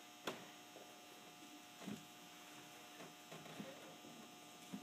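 Near silence: room tone with a faint steady hum and a few soft, scattered knocks.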